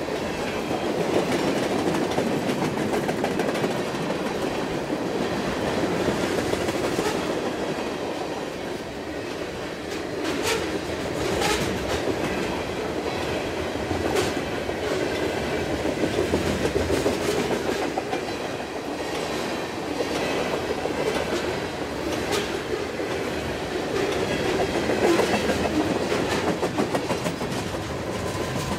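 A train's cars rolling past at speed, a steady rolling noise with wheels clacking over the rail joints.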